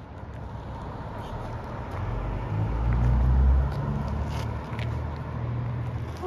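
A car passing on the street: a low engine and tyre rumble that swells to its loudest about three seconds in, then fades.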